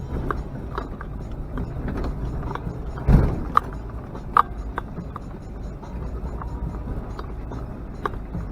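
Off-road vehicle driving over a rough, rocky track: a steady low engine and road rumble with scattered knocks and rattles from the body, and one heavy thump about three seconds in followed by two sharp knocks.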